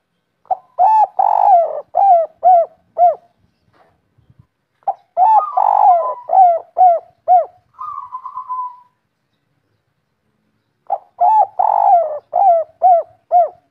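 Spotted dove cooing in the call keepers call 'kuk 3'. It gives three phrases, each a long drawn coo followed by three short coos. After the second phrase comes a short buzzy rattle.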